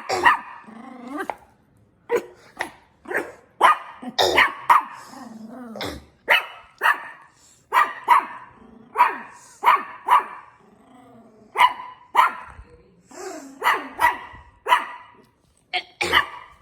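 A dog barking over and over, in uneven runs of single and paired barks, about one to two a second.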